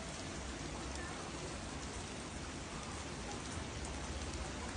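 Heavy rain falling steadily, with floodwater running through the street.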